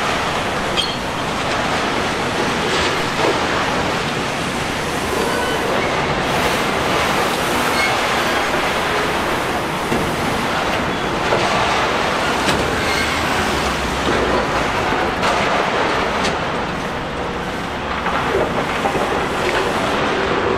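A high-reach demolition excavator working, its engine and hydraulics running steadily under a dense wash of crunching and clattering from breaking concrete and falling debris, with many small knocks scattered throughout.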